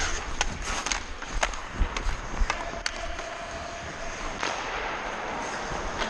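Ice skate blades scraping and carving across the ice, with several sharp clacks of hockey sticks striking the puck and ice in the first three seconds.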